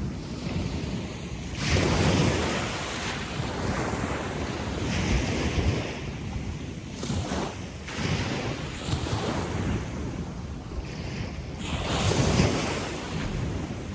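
Gentle sea waves breaking and washing up and back on a sandy beach, with surges about two seconds in and again near the end, and wind rumbling on the microphone.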